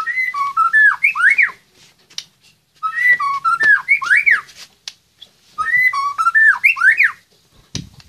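White-rumped shama (murai batu) singing the same whistled phrase three times, each about a second and a half long, with gaps of about a second between. Each phrase is a run of clear notes that ends in quick rising and falling slurs.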